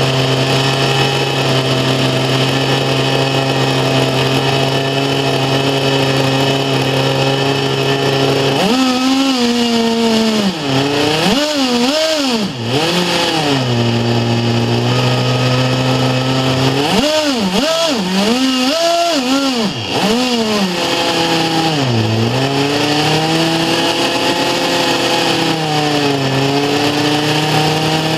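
Webra 61 two-stroke glow engine driving a RamTec ducted fan, running hard with a high-pitched scream. About nine seconds in it starts being revved up and down again and again, with short steady holds between, then settles back to a steady run near the end.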